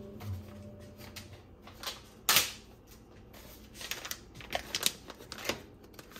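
Scattered clicks and knocks of items being handled on a kitchen counter, with one sharp click about two seconds in and a run of lighter taps near the end.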